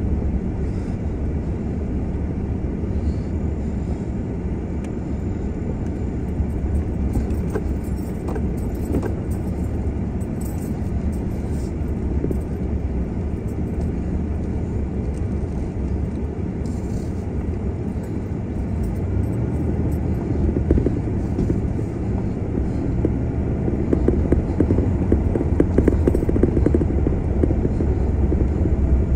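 Vehicle driving along a gravel road: a steady low rumble of engine and tyres on gravel, getting somewhat louder and rougher about two-thirds of the way through.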